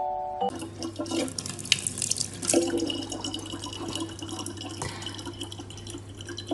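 Thin stream of tap water running from a gooseneck faucet into the neck of a large plastic water bottle, trickling and splashing, with a steady low hum underneath.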